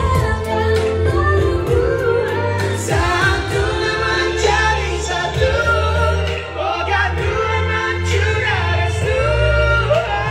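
A woman singing into a microphone over a backing track with a steady beat and bass.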